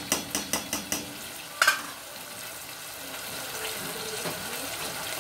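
Chicken breast pieces sizzling in a stainless steel pot, stirred with a spoon that clicks and scrapes against the pot about five times a second in the first second, then knocks twice, louder, about a second and a half in. After that only the steady sizzle of the frying goes on.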